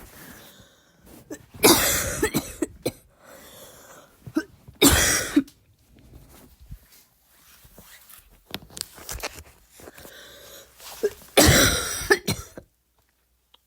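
A woman's harsh barking coughs, forced on purpose rather than from illness, in separate fits: a loud one about two seconds in, another about five seconds in, and a longer run near the end, with smaller coughs between.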